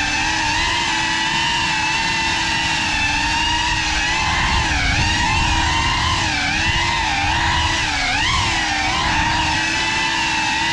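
Motors and propellers of a GEPRC Cinelog35 6S cinewhoop FPV drone whining, the pitch rising and falling constantly with the throttle, with a sharp upward swoop about eight seconds in.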